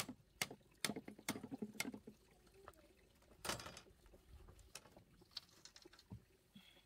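Split bamboo strips of a lattice panel clicking and knocking against each other and against a machete as the panel is worked: a run of sharp knocks about half a second apart, a louder knock about three and a half seconds in, then lighter scattered clicks.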